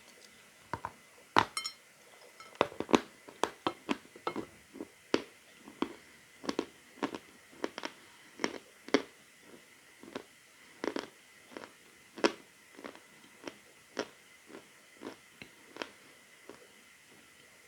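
A lump of Annovka natural chalk being bitten and chewed close up: a run of sharp, dry crunches, irregular at about two or three a second, thinning out and stopping near the end.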